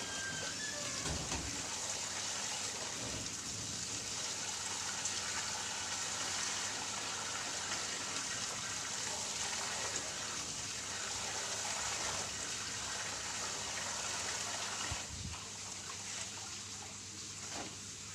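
Water running from a tap into a plastic basin, a steady splashing rush while laundry is washed by hand in it; it gets somewhat quieter about fifteen seconds in.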